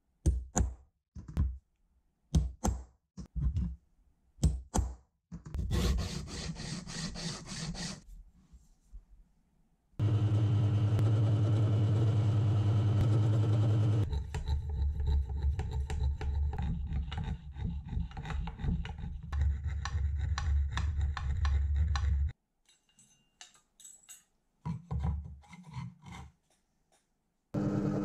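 Benchtop drill press running and drilling holes in an aluminium bar held in a machine vise: a steady motor hum with a rough cutting noise over it. It is preceded by a series of sharp taps and clicks and a stretch of scraping. The motor stops about two-thirds of the way through, a few knocks follow, and it starts again near the end.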